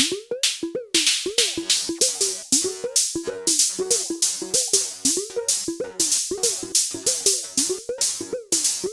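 Korg Volca Drum playing a looping electronic percussion pattern through Bastl Kastle 2 FX Wizard effects: short pitched hits that bend up and then down in pitch, about two a second, alternating with noisy hiss-like hits.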